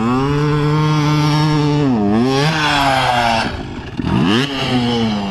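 Dirt bike engine revving hard through sand, easing off about two seconds in and revving up again. About four seconds in the engine note breaks up with a brief clatter and scrape as the bike goes down, and the engine keeps running at a lower pitch afterwards.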